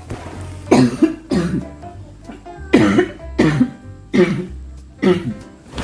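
Background music with six short cough-like sounds, in three pairs.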